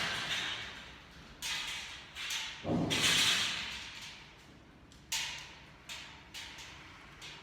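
Irregular knocks and thuds from construction work, each dying away quickly, with the loudest and deepest about three seconds in.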